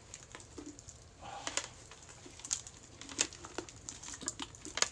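Hands squeezing and mixing a mixed slime full of foam beads and crunchy bingsu beads, giving irregular sharp crackles and pops.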